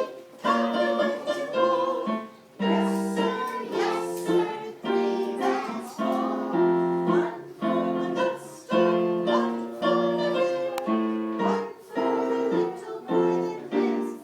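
Sing-along music: a woman leading a song with instrumental accompaniment, in short repeated phrases.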